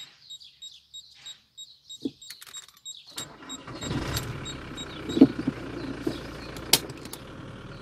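Parking-sensor buzzer giving rapid, evenly spaced high beeps with the car in reverse and an obstacle close behind. About three seconds in, the car's engine comes on and runs steadily, with a few sharp clicks.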